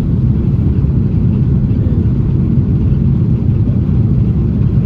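Cabin noise of an Airbus A330-900neo airliner during its landing: a loud, steady low rumble of its engines and the air rushing past the fuselage.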